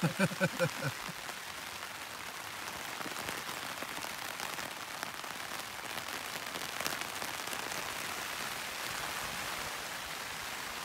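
Heavy rain pattering steadily on a tent flysheet, with drops falling from its edge into metal camping mugs set out to collect rainwater. A brief burst of a man's voice right at the start.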